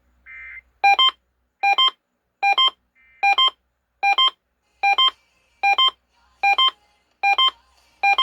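An electronic alarm beeping: a short, softer tone, then about ten sharp double beeps, each a chord of several pitches, repeating a little faster than one a second.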